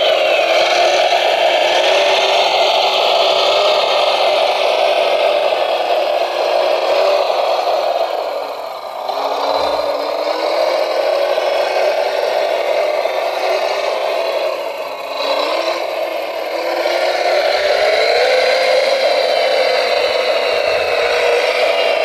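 Radio-controlled Volvo L250G wheel loader working in wet gravel: the whine of its motors rises and falls in pitch as it drives and works the bucket, briefly easing off twice.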